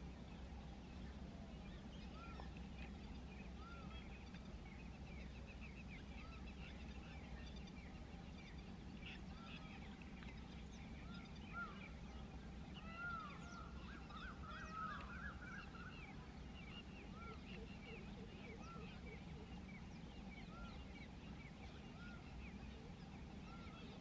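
Several birds calling: a short note repeated every second or two, many faint chirps from other birds, and a busier run of calls around the middle. A steady low rumble runs underneath.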